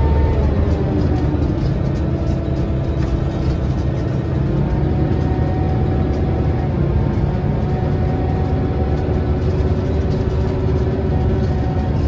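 Cabin sound of a 2003 Scania L94UB city bus on the move: a steady low engine drone with a whine from the driveline over it, its pitch dropping slightly about a second in and then holding level.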